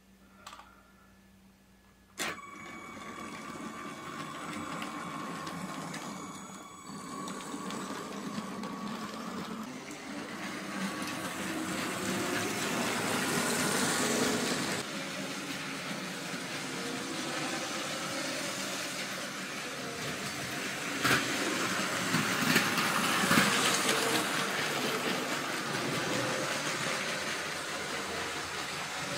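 LEGO Cargo Train 7939's Power Functions motor whirring and its wheels rolling on plastic track, starting about two seconds in. It runs steadily, grows louder as the train passes close, and has a few sharp clicks later on.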